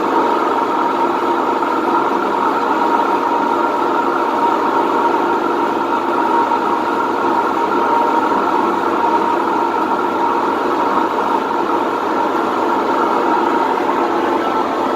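Whirlpool top-load washing machine's drum spinning in the drain cycle, a loud, steady, even running noise. The repairer takes this as typical of a washer with worn tub bearings.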